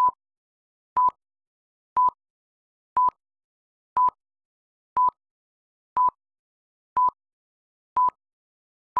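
Film-leader countdown beeps: a short, single-pitched high beep once a second, each one marking a number of the count, with silence between.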